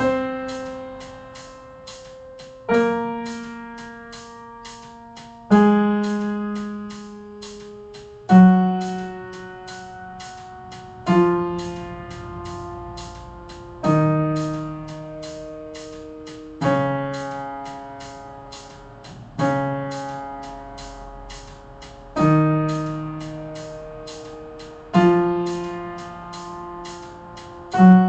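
Piano keyboard playing slow whole-note chords, one struck about every three seconds and left to ring and fade, stepping through the D-flat major scale, with a metronome clicking about four times to each chord.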